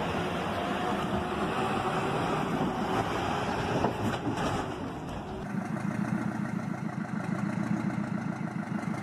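Heavy truck engine running, with a sharp crash about four seconds in as a wooden bridge gives way under the truck. After an abrupt change, a diesel log truck's engine idles with a steady low pulsing.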